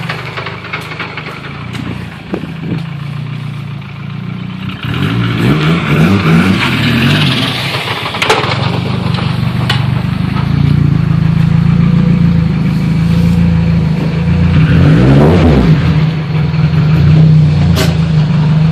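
Hyundai Tiburon's engine running as the car is moved, its transmission failed with third gear stripped; the engine note rises and falls twice and a few sharp clanks stand out.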